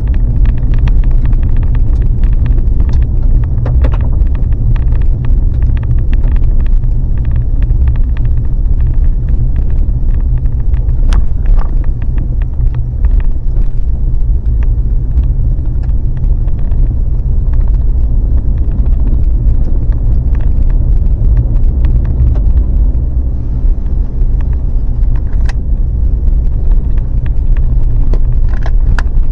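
Vehicle driving, heard as a loud steady low rumble of road and engine noise, with scattered small clicks and rattles throughout.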